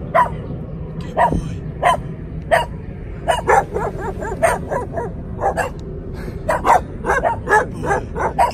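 Stray dog barking over and over, single barks spaced about half a second to a second apart at first, then a quicker run of barks a few seconds in.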